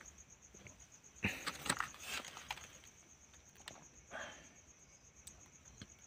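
Crickets chirping in a steady, rapidly pulsing high trill, with a few short rustles and knocks of handling, the loudest about a second in and a softer one around four seconds.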